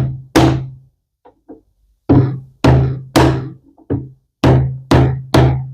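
Hammer blows on a scrap wood block, driving a dry-fitted mortise and tenon joint apart: about nine hard strikes at an uneven pace, two quick ones, a short pause, then a run of steadier blows. Each strike has a short, low ring.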